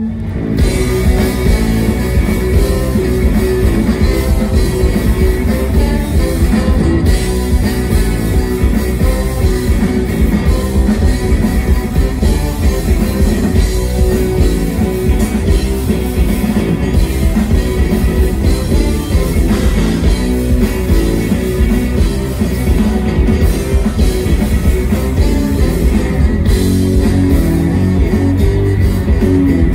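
Live psychedelic rock band playing loud, electric guitars over drums and bass, coming in suddenly at the start.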